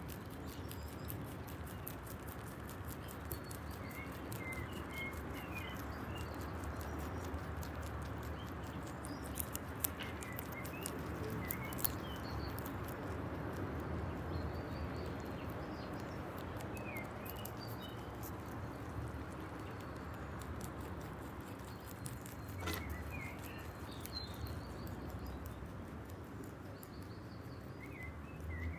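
Lop-eared rabbits chewing dandelion stems and flowers: a rapid, continuous patter of small crunching clicks. Birds chirp briefly now and then in the background.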